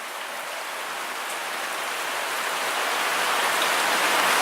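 Heavy rain pouring down in a steady hiss that grows gradually louder.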